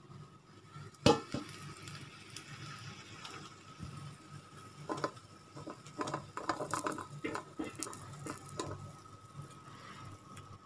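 Stir-fried tofu and cabbage being served onto a ceramic plate: a sharp clink about a second in, then scattered clinks and scrapes of a utensil against the plate and pan as the food is tipped on, over a faint steady hum.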